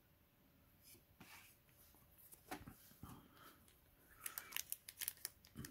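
Faint handling of Yu-Gi-Oh! trading cards and booster pack wrapping: scattered light clicks and brief crinkly rustles, growing busier over the last couple of seconds.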